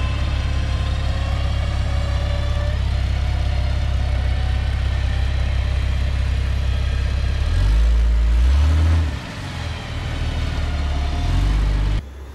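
Jeep Cherokee XJ's engine running steadily, then revving up and back down about seven and a half seconds in and again near the end, as it works to pull out of a mud rut; the sound cuts off suddenly at the very end.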